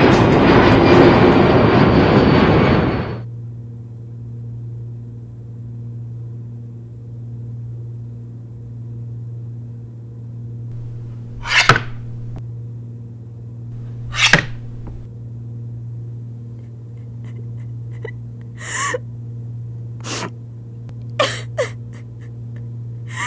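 A loud rushing noise cuts off suddenly about three seconds in, leaving a steady low hum. A few short sharp sounds fall in the second half, two of them close together near the end.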